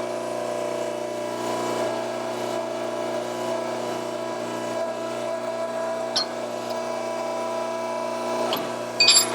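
Electric shop machine running with a steady, unchanging hum, with a sharp click about six seconds in and a louder rattle of clicks near the end.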